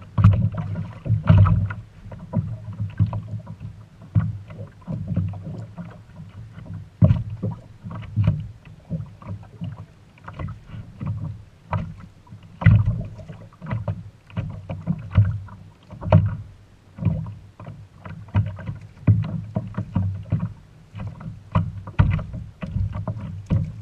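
Small waves lapping and slapping against a kayak hull, with irregular knocks roughly one or two a second.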